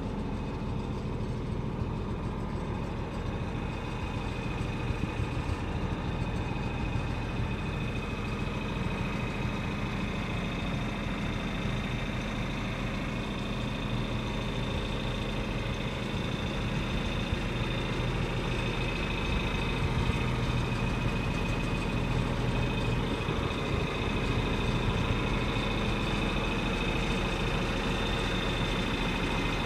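Tractor engine running steadily, driving an Arts-Way PM 20 grinder mixer, with a steady high whine over the engine's low drone. It grows a little louder about two-thirds of the way through.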